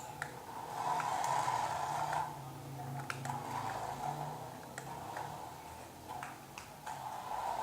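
A mini RC car's small electric motor and gears running, getting louder and quieter in turns, with scattered sharp clicks.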